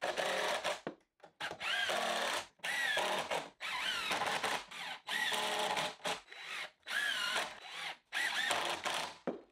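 Cordless impact driver driving long GRK structural screws into pressure-treated 2x6 lumber, in a string of short bursts of about a second each. Its motor pitch sweeps up and down as each screw bites and seats.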